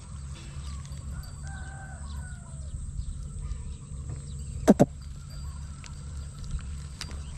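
A rooster crowing faintly about two seconds in, over a steady low rumble. Two sharp clicks about halfway through are the loudest sound.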